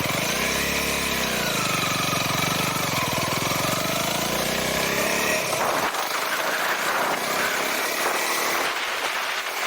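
Honda Rebel 250's single-cylinder engine running, its pitch rising and falling once about a second in before settling back to a steady note. About five and a half seconds in, the low engine note fades and gives way to a noisier rushing sound.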